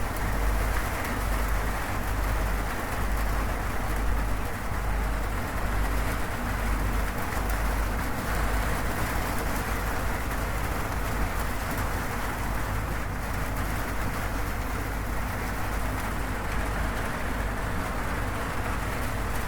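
Steady rain falling on a zinc (corrugated metal) roof, with a deep low rumble running underneath.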